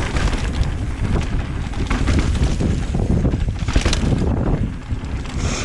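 Mountain bike riding down a dirt trail: wind buffeting the microphone over the rumble of the tyres, with frequent short knocks and rattles from the bike over the rough ground.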